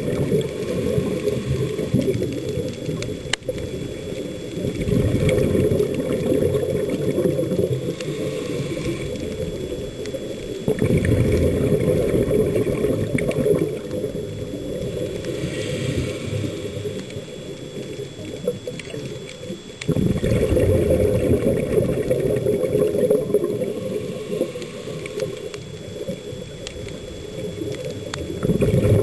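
Scuba diver's regulator heard underwater: low, muffled bubbling and rushing of breath, swelling into louder stretches of a few seconds with quieter spells between.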